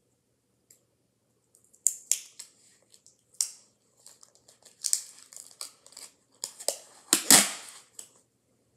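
Wide adhesive tape being pulled off its roll and torn, a run of sharp, loud rips and crackles starting about two seconds in, the loudest rip about seven seconds in.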